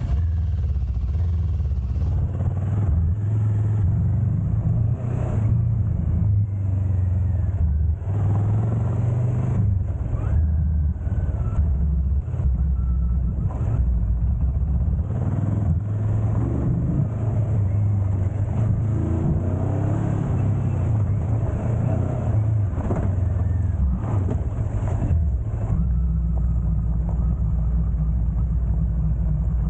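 Motorcycle engine running steadily while riding along a dirt track, heard as a continuous low rumble.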